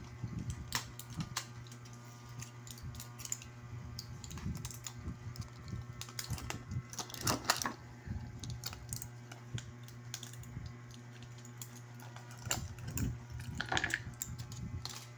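Irregular light clicks and taps of small objects being handled, a few louder ones about midway and near the end, over a steady low hum.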